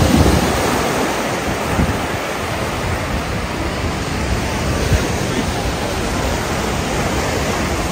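Small surf breaking and washing up a sandy beach as a steady rush, with wind buffeting the microphone at times.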